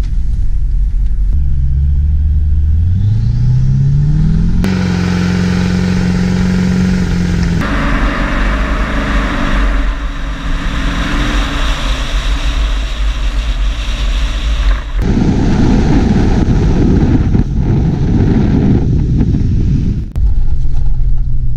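Duramax V8 turbodiesel in an H2 Hummer accelerating hard, its engine note climbing steadily for a few seconds and then holding at high revs. After that it runs on as a rougher, noisier vehicle sound, with abrupt changes where the footage is cut.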